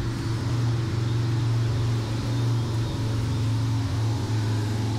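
Steady low hum of road traffic.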